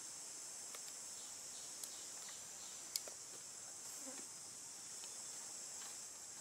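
Steady high-pitched insect chorus droning in the forest canopy. Two sharp clicks cut through it, a small one just under two seconds in and a louder one about three seconds in.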